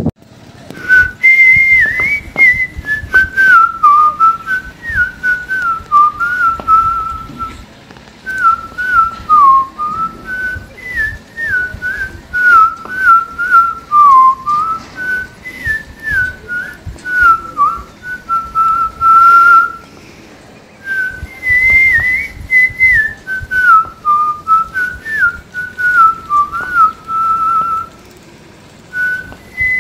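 A whistled tune: one melody line of short stepping notes in phrases. The opening phrase comes round again about twenty seconds in.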